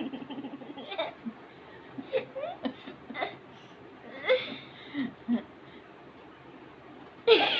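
A young boy giggling in short, stifled bursts while his nose is tickled, with a louder burst of laughter near the end.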